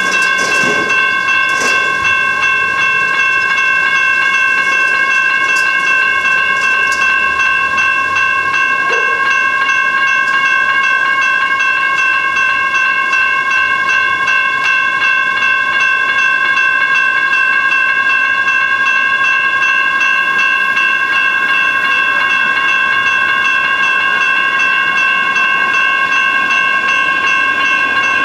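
General Signals Type 2 electronic railroad crossing bell ringing steadily in rapid, even strokes: the crossing is activated for an approaching train.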